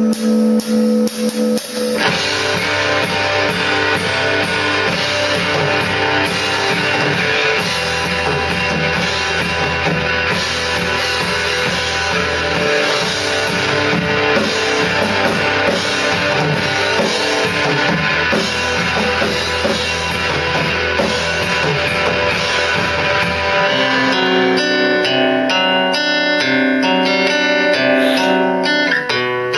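Live band music: a held chord rings, then about two seconds in guitar and drum kit come in together. About 24 seconds in, the drums and low end drop out and a guitar carries on alone with single plucked notes.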